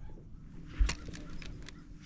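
A single sharp thump about a second in, with a few lighter clicks around it and a low steady hum underneath.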